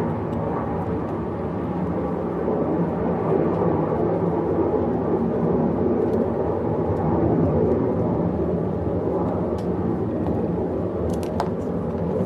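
Jet aircraft engine noise, a steady rushing drone that swells a little in the middle, with a few faint clicks near the end.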